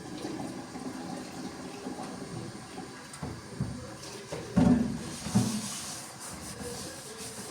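Water running, with scattered low knocks; the two loudest come about four and a half and five and a half seconds in.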